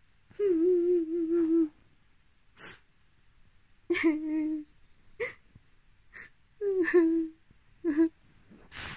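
A woman fake crying: drawn-out, wavering whimpering wails, four in all, the first the longest, with short breathy sounds between them.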